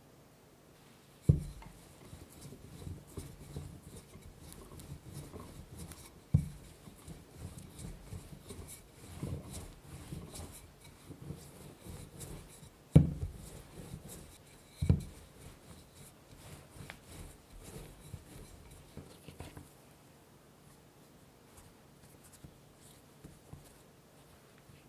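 Wooden rolling pin rolling pie dough out on a bamboo cutting board: a low, continuous rubbing and rolling, broken by four dull wooden knocks, the loudest about halfway through. Near the end it turns to quieter hand patting and folding of the dough.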